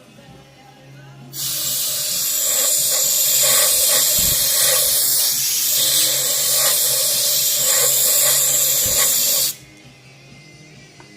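Steady, loud hiss of compressed air blowing. It starts suddenly about a second and a half in and cuts off sharply about eight seconds later, with two dull knocks during it.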